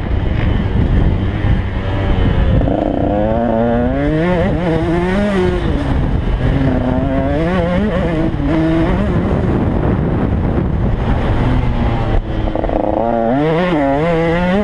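Two-stroke single-cylinder engine of a KTM 150 XC dirt bike being ridden hard, its pitch climbing and dropping again and again as the rider revs through the gears, with wind buffeting the helmet camera.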